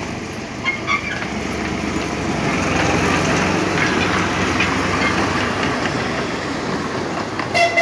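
Miniature railway locomotive's diesel engine running as it passes close by at low speed, growing louder towards the middle, with a few wheel clicks over the rail joints. A brief high-pitched tone sounds near the end.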